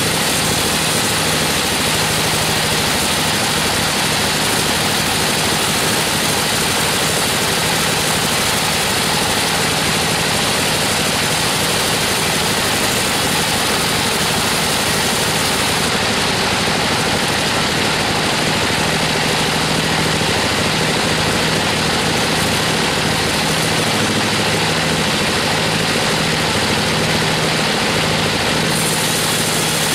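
Band sawmill running with a steady drone while its vertical blade saws through a log of weru (Albizia procera) wood.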